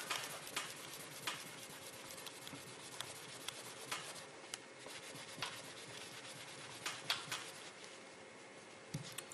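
Cloth rubbing over a small metal disc on a tabletop: a quiet, soft scuffing with scattered light clicks.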